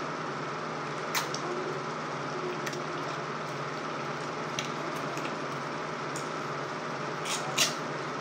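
Spoon and fork clinking a few times against a ceramic plate and bowl while eating, the loudest clinks near the end, with chewing, over a steady low hum.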